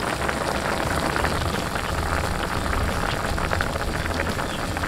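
Pork adobo braise simmering in a non-stick frying pan, a steady crackle of many small bubbles popping in the reducing soy-vinegar sauce, over a low steady hum.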